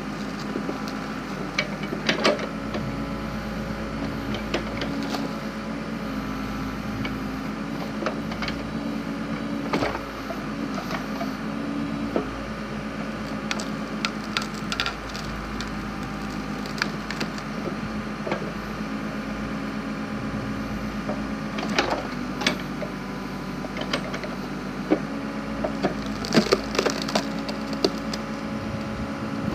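Backhoe engine running steadily while its log splitter splits firewood, with a scattering of sharp cracks and snaps of wood giving way, loudest about two, twenty-two and twenty-six seconds in.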